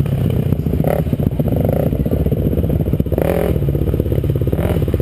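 Dirt bike engine running at low trail speed, heard from the rider's own bike, with its revs wavering a little and dipping briefly near the end.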